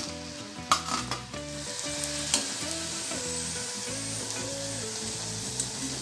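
Spring rolls deep-frying in hot oil in a karahi, sizzling steadily, with a few sharp clinks of a metal slotted spoon against the pan as a roll is turned, about a second in and again a little after two seconds. Faint background music underneath.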